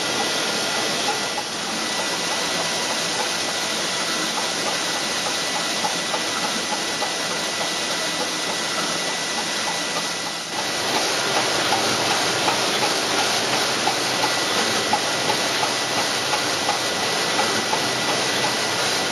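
VanDam 570 printing machine running in production: a steady mechanical run with hiss and a faint steady whistle, and a rapid, even ticking that is more prominent in the second half.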